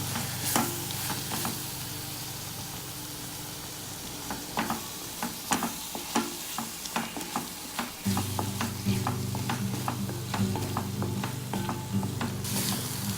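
Onion paste sizzling in hot ghee in a pan while being stirred with a spoon. From about four seconds in, the spoon scrapes and clicks against the pan many times.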